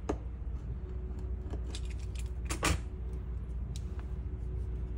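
Light handling noises of small objects on a workbench: a sharp click at the start, scattered faint ticks, and a louder brief clatter and rustle about two and a half seconds in, over a steady low hum.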